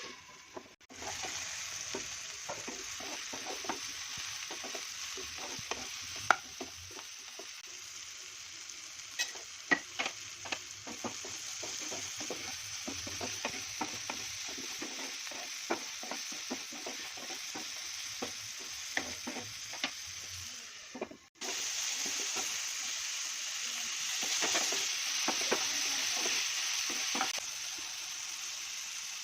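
Food sizzling as it fries in a pan while being stirred, with frequent spoon scrapes and taps on the pan. The sizzle breaks off briefly near the start and again about two-thirds through.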